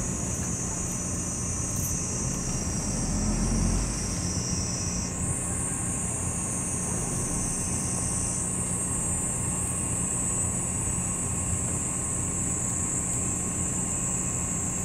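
Cicadas shrilling in a steady chorus. The pitch steps up about five seconds in, and a lower layer stops a few seconds later, over a faint low rumble.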